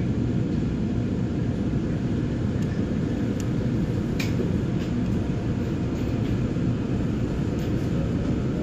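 Steady low rumble of a moving Gyeongui–Jungang Line commuter train, with a few faint clicks near the middle.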